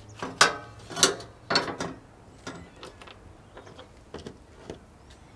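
Metal parts of a three-burner LPG camping stove clanking and clicking as it is put back together: burner cap and folding windshield panels being fitted. Three sharp knocks with a short ring in the first two seconds, then lighter clicks.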